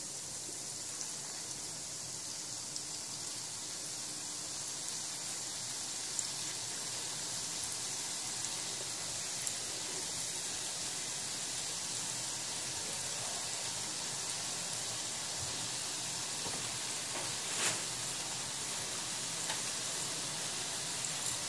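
Urad dal imarti batter deep-frying in hot oil: a steady sizzle that grows slightly louder, with a few small pops.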